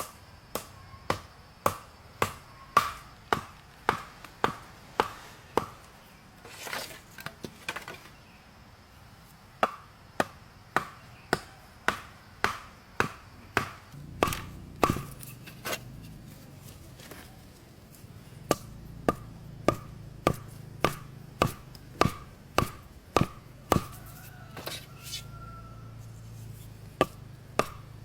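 Repeated chopping strikes, about one and a half a second, each a sharp crack. The strikes stop twice for a few seconds and then resume.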